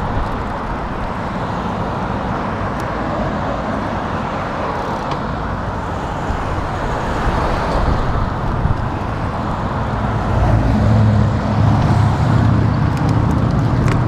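Road traffic: a line of cars passing, with a steady rush of tyres and engines. A deeper engine rumble swells louder over the last few seconds.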